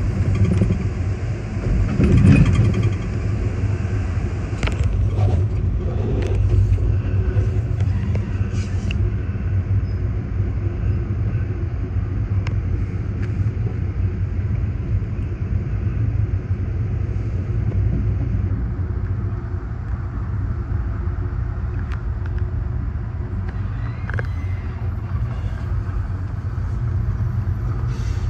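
Steady low rumble of a moving passenger train heard from aboard a Superliner coach: wheels running on the rails, with a few short clicks and knocks in the first nine seconds or so.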